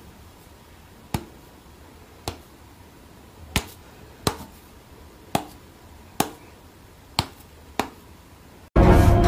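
About nine sharp snaps, roughly a second apart, from a hand in play with a Bengal cat that swats at it. Loud music cuts in suddenly near the end.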